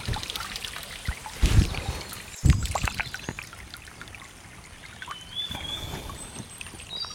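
Water splashing and pouring as hands scoop from a shallow forest stream with a leaf folded into a cone, over the steady trickle of the stream, with two louder splashes about a second and a half and two and a half seconds in. A bird gives a short wavering whistle a little past the middle.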